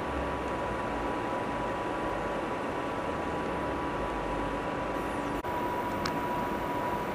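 Steady hiss and low rumble with a thin steady tone, cut off for an instant about five and a half seconds in.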